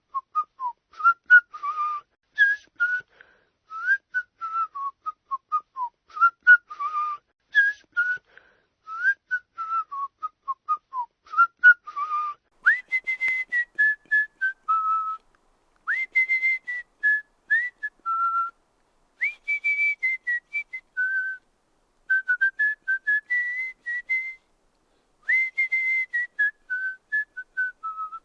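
Human whistling a short tune. A quick phrase of short notes repeats about five times. About halfway through it changes to phrases of higher, longer held notes, each starting with an upward swoop.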